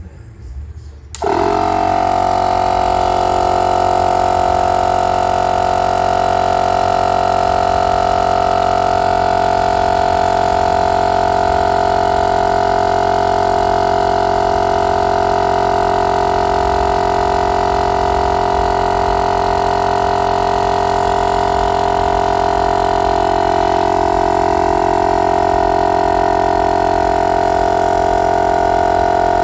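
Motomaster 12-volt direct-drive air compressor switching on about a second in, then running steadily with a constant whine while inflating a car tire. The owner suspects the unit is overheating, which makes it cut out before reaching pressure.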